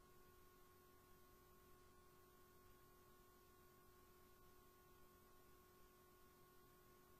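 Near silence, with a faint steady hum.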